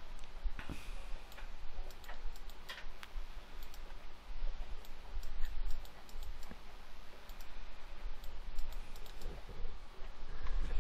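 Scattered, irregular clicks of a computer mouse and keyboard as a photo editor works, over a steady low rumble.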